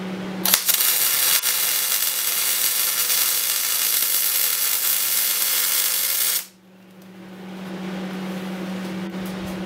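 MIG welding arc on steel plate in short-circuit (dip) transfer: the wire speed is matched to the amperage, a good setting, and the arc runs evenly for about six seconds before it cuts off suddenly. A steady low hum carries on under it and after it.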